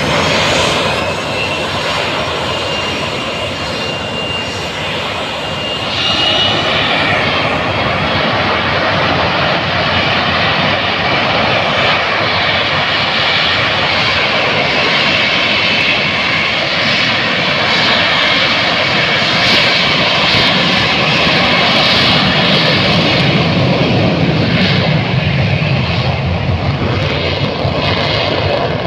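Boeing 737-200's Pratt & Whitney JT8D turbofan engines running as the jet taxis: a loud, steady jet noise with a high whine over it, growing louder from about six seconds in.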